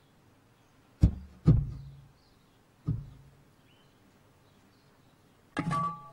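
Cartoon sound effects of a cat thudding against a glass door: three dull, heavy thumps, two close together about a second in and a third a moment later. Near the end there is a brief squeak.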